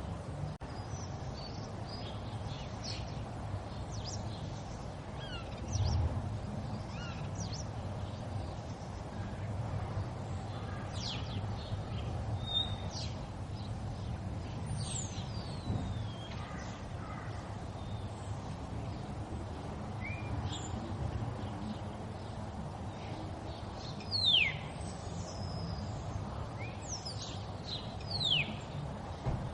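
River water flowing with a steady rushing, while small birds call now and then in short, high, falling whistles, a few louder ones near the end.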